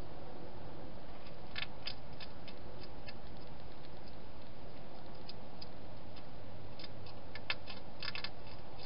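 Wild hedgehog crunching dry food inside a plastic feeding station: irregular small sharp clicks, in clusters about one and a half seconds in and again near the end, over the steady hiss of the camera microphone.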